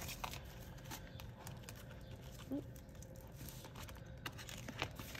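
Faint rustling of paper banknotes and crinkling of a clear vinyl binder envelope being handled, with scattered light clicks.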